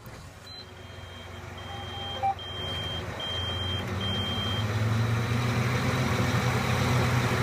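Tractor engine running in the cab, growing steadily louder, while five short electronic warning beeps sound one after another over the first few seconds.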